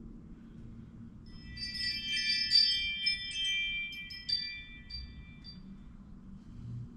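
Small loose metal parts jingling and clinking as a hand rummages through a container of spare pieces, with many light ringing strikes that thin out to a few last clinks.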